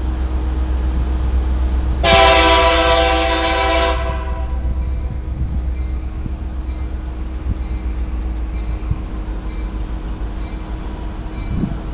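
Locomotive air horn sounding one long chord blast of about two seconds, starting about two seconds in, over the steady low rumble of an approaching CSX diesel freight train.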